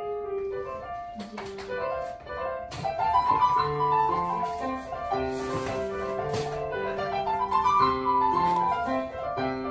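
Background piano music with a melody of held notes.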